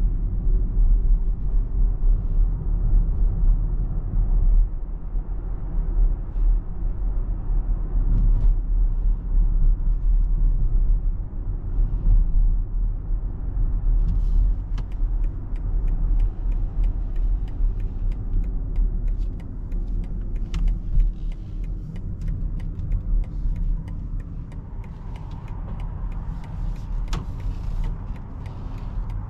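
BMW iX3 electric SUV being driven, with steady low road and tyre rumble. A faint whine falls in pitch over the first few seconds and rises again near the end, with scattered light clicks in the second half.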